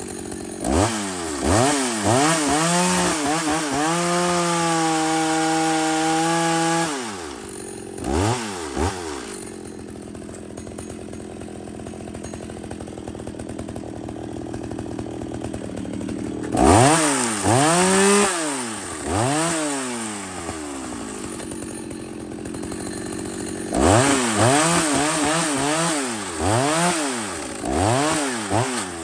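A two-stroke chainsaw engine is revved in repeated throttle blips and held at high revs for a few seconds near the start. It drops back to a steady idle between three bursts of revving.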